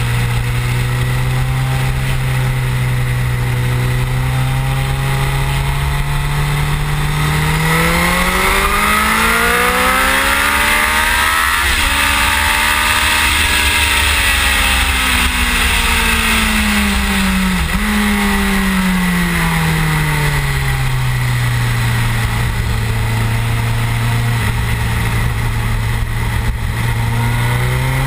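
Suzuki GSX-R1000 K7's inline-four engine heard onboard at a track pace: a steady low note, then climbing hard under acceleration with a quick gear change about twelve seconds in, falling back as the bike slows, and starting to climb again near the end. Wind rush over the fairing-mounted microphone runs under the engine throughout.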